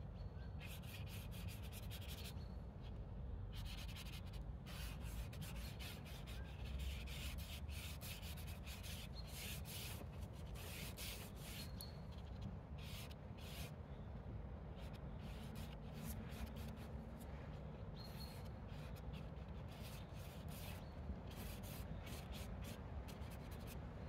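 A paintbrush scrubbing paint onto paper in a quick, irregular run of strokes, each one a short scratch.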